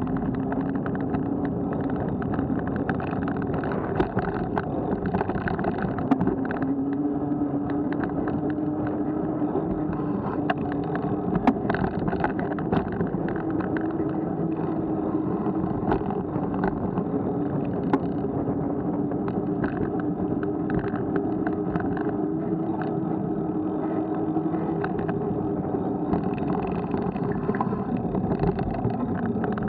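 Road rumble and rattle of a bicycle ride over paving and asphalt, picked up through a Garmin VIRB Elite action camera, with frequent small knocks from bumps and a steady hum that drifts slightly in pitch.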